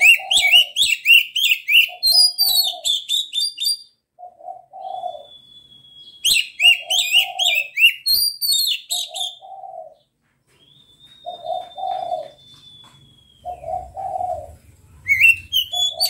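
Oriental magpie-robin singing loud, rapid, varied phrases in three bursts, with long steady whistles between them. A dove coos a low two-note call over and over underneath.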